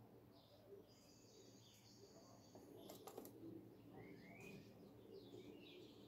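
Faint dawn birdsong: small birds giving short high chirps, with a thin high note held for about a second and a half early on and a cluster of chirps in the second half. Two sharp clicks come about three seconds in, over a low steady background hum.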